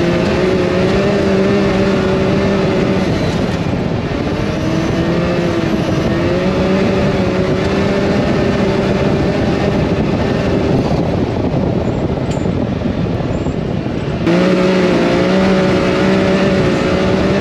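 A Can-Am Maverick X3 side-by-side's turbocharged three-cylinder engine running under way at a fairly steady speed, its note easing off and picking up a few times over a constant rush of wind and tyre noise. The sound gets suddenly louder about 14 seconds in.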